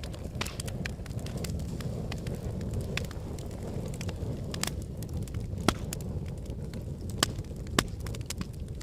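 Wood fire burning in a fireplace: a steady low rumble of flames under frequent sharp crackles and pops, with a few louder pops in the second half.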